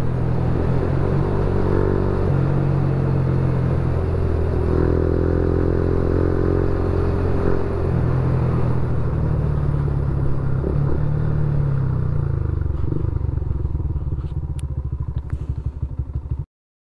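Motorcycle engine running steadily at road speed, with wind noise over it. After about twelve seconds the steady note breaks up into an uneven, pulsing putter as the bike slows and pulls over, with a few light clicks near the end before the sound cuts off suddenly.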